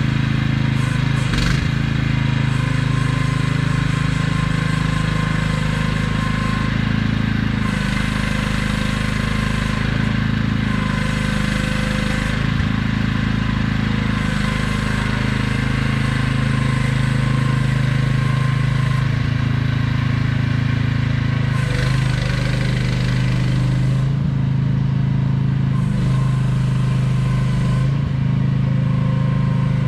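AGT QH12R mini excavator's engine running steadily as the machine works, its note shifting slightly several times through the stretch.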